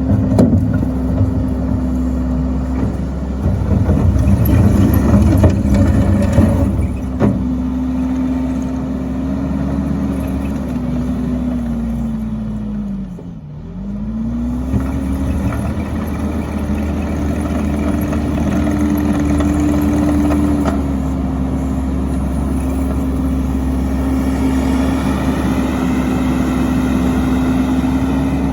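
A firewood splitter's engine runs steadily. Partway through, it slowly sags in pitch as it lugs under load, then recovers to its running speed. Louder rough, clattering noise rides over it for a few seconds near the start.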